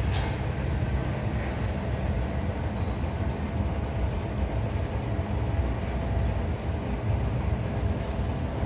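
Steady low rumble of outdoor background noise, with a brief click right at the start.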